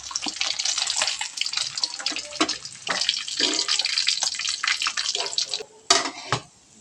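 Water splashing and sloshing in quick irregular strokes, stopping abruptly about five and a half seconds in, followed by two sharp knocks.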